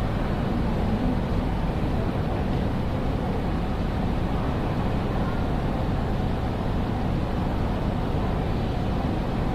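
Steady, even background rumble of a large railway station hall, with no single event standing out.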